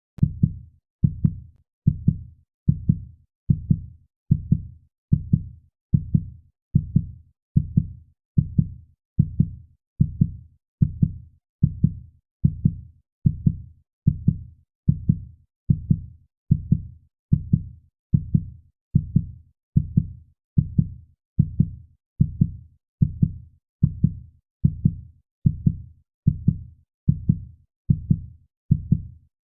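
Heartbeat sound effect: a steady, even pulse of low, muffled thumps, a little faster than one a second, starting abruptly out of silence.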